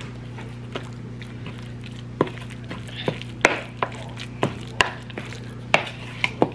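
Plastic spoon stirring and scraping a thick salmon-and-flour croquette mixture in a bowl, knocking against the bowl about ten times at an uneven pace, mostly from about two seconds in.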